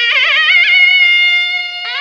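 Nadaswaram playing a Carnatic alapana in raga Dharmavathi: a fast wavering, ornamented phrase that settles onto a long held note, with a new note coming in near the end, over a steady drone.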